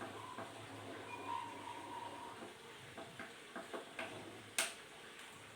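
A low steady hum with scattered light clicks and knocks, the sharpest click about four and a half seconds in.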